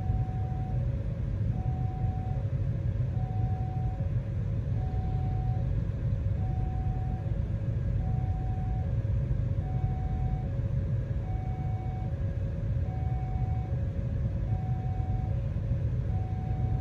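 Railway level-crossing warning signal sounding a steady alternating two-note chime, a high note then a low one about every second and a half, warning of an approaching train. Under it is the louder low rumble of cars and motorcycles idling in the queue.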